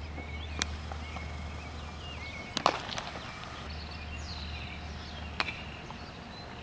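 Baseball infield practice: a few sharp cracks of the ball, the loudest about two and a half seconds in, with birds chirping and a low steady hum underneath.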